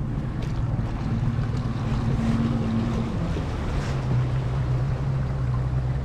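A boat motor running slowly, a steady low hum that drops in pitch about three to four seconds in, with wind and water noise.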